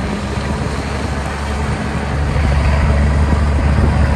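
Mercedes-Benz Unimog off-road truck driving through shallow water: its diesel engine runs steadily under load and grows louder about halfway through, over the wash and splash of water around the tyres.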